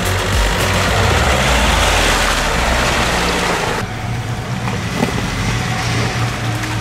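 Off-road 4x4's engine running hard with a loud rushing noise over it. About halfway through, the sound changes abruptly to a steadier, slightly quieter engine drone.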